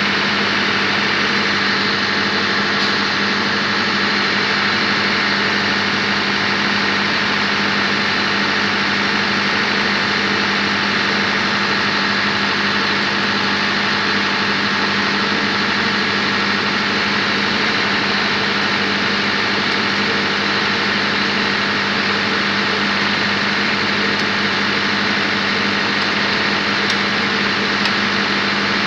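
A diesel engine running steadily: a constant drone with a strong low hum that does not change.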